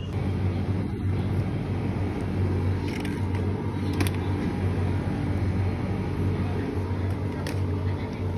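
Steady low rumble and hum, broken by sharp clicks about three and four seconds in as a plastic drink bottle is set down into a plastic shopping basket.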